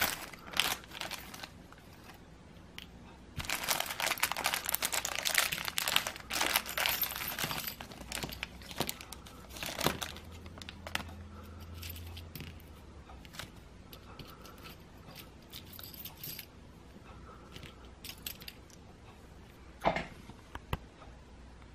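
Clear plastic parts bag crinkling as it is handled and emptied, with small screws, nuts and washers clicking and clattering onto a table. A dense stretch of crinkling comes a few seconds in, scattered small clicks follow, and there is one sharper knock near the end.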